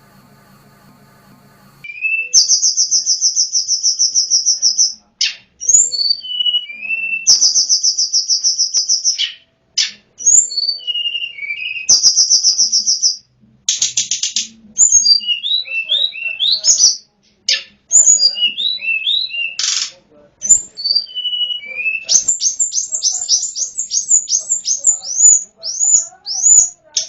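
Tledekan gunung bird song used as a lure call: loud, high, rapid buzzy trills of a second or two, repeated several times, between short falling whistled notes, turning to a fast run of quick notes near the end.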